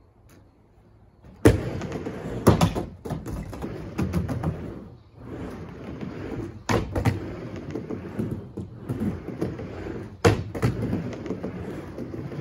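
Skateboard on a wooden mini ramp half-pipe: a sharp clack about a second and a half in as the board drops in, then the wheels rumbling back and forth across the ramp surface, with more loud clacks of the board hitting the ramp at intervals.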